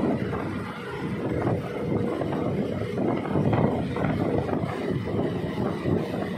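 Wind buffeting the microphone of a motorcycle in motion, with the bike's engine and road noise underneath.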